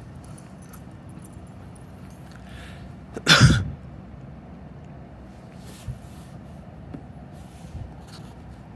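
One short, loud sneeze about three seconds in, over a faint steady outdoor background.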